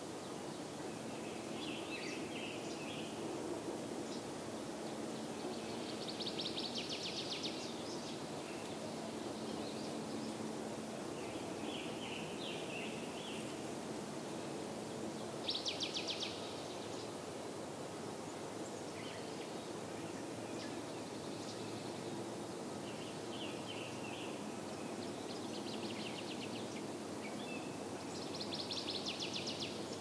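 Songbirds singing: short burry phrases alternate with rapid high trills, each repeated every few seconds, the loudest trill about halfway through, over steady low background noise.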